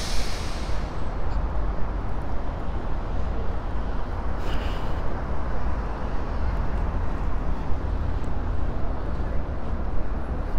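City street ambience: a steady low rumble of traffic, with two brief hisses, one at the start and one about four and a half seconds in.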